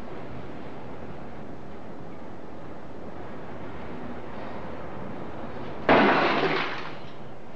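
Steady low background noise, then a single sudden loud bang near the end that dies away over about a second.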